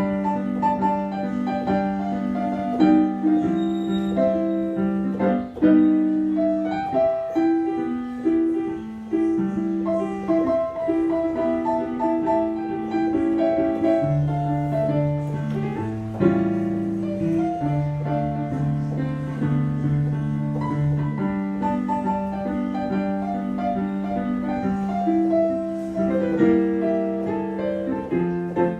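Roland XPS-10 keyboard playing a forró tune with a piano-like sound: a melody line over long held bass notes.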